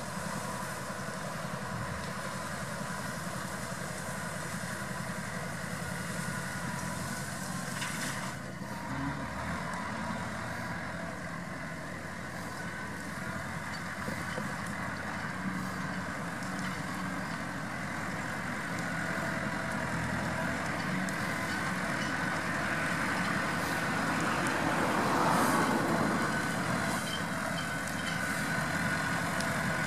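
McCormick MC105 tractor's diesel engine running steadily as it works a hay field pulling a rotary hay tedder, growing louder as the tractor comes closer and peaking about 25 seconds in.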